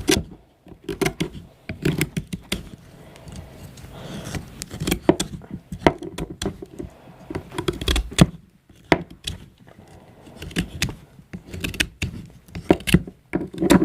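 Knife blade of a Stanley multi-tool whittling wood: irregular short scraping cuts and small knocks.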